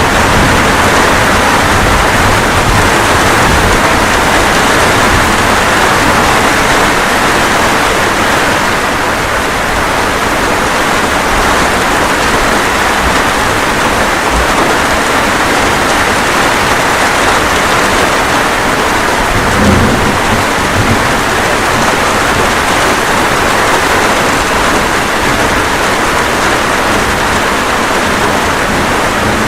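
Steady rain falling, with low rolls of thunder rumbling under it, most noticeably about two-thirds of the way through.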